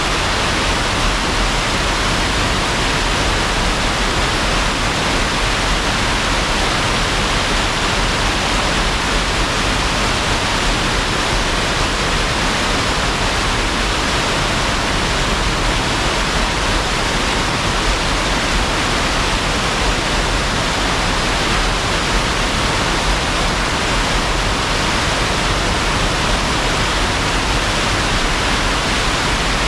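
Water rushing over a dam spillway: a loud, steady roar with no letup.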